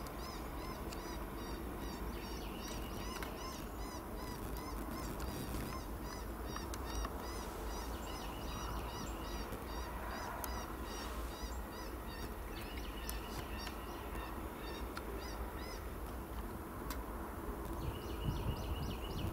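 Birds calling: long runs of short, high, chirping notes repeated several times a second, with brief gaps, over a steady low background hiss.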